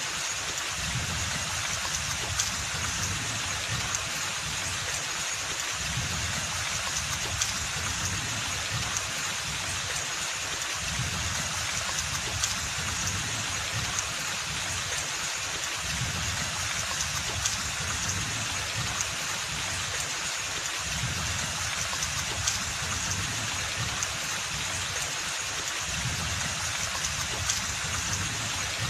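Steady rain falling on forest foliage: an even hiss scattered with sharper drop ticks, under a low rumble that swells and fades every few seconds.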